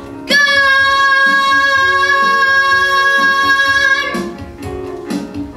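A singer holds one long, loud note for about four seconds over instrumental accompaniment, cutting off a little after the fourth second. The accompaniment then carries on alone.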